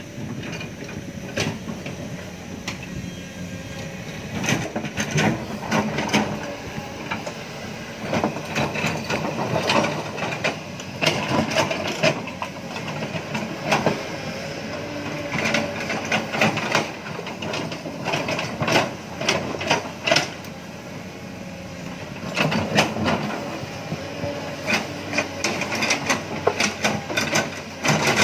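Excavator working to load a dump truck: engine running steadily under frequent clanks, knocks and clatter.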